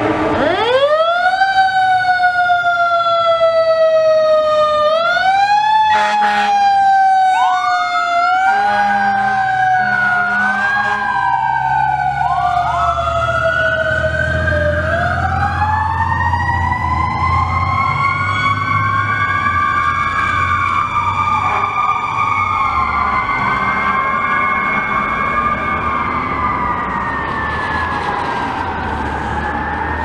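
Fire apparatus sirens wailing as the trucks respond. One siren starts about half a second in, winds up quickly and then falls slowly, repeating. From about twelve seconds in, several sirens rise and fall over each other, one in a long slow rise and fall, over low truck engine rumble.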